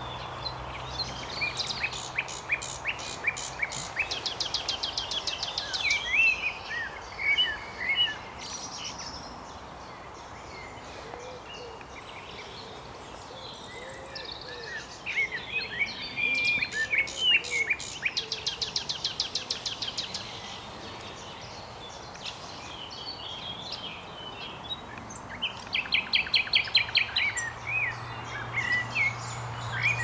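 Common nightingale singing: phrases of fast repeated notes and rapid stuttering trills mixed with whistles and chirps. The song comes in three long bursts with pauses of a few seconds between them.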